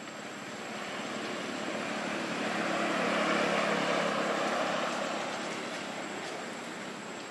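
A distant engine passing by. Its noise swells to a peak about three seconds in, then fades away.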